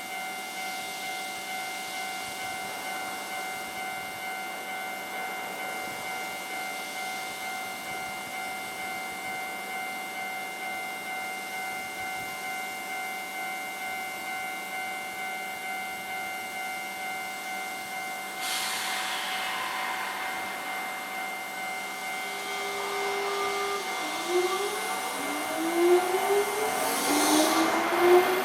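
Japanese level-crossing warning alarm ringing in an even, repeating electronic ding. About two-thirds in a sudden hiss starts, and near the end a Nankai electric train's motors whine in repeated rising glides as it pulls away.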